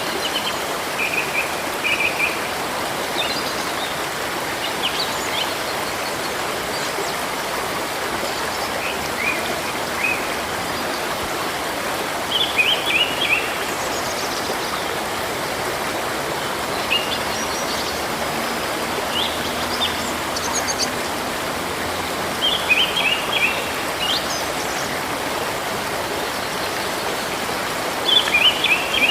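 A steady rush of flowing river water with small birds chirping over it in short bursts of quick notes every few seconds, a busier flurry of chirps near the end.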